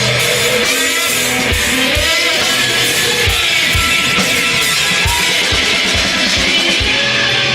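Rock music: a distorted electric guitar holding sustained notes over a drum kit whose kick drum hits at a steady pulse.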